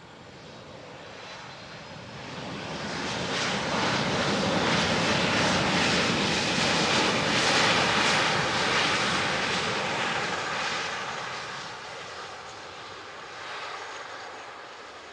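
Boeing 737-500's CFM56 turbofan engines running as the jet moves along the runway past the listener. The engine noise swells to a peak about halfway through, then fades as the jet moves away.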